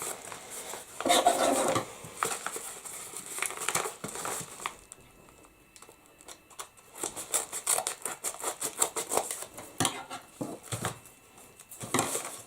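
Packaging being handled: irregular crinkling and rustling with light clicks and taps, quieter for a couple of seconds in the middle.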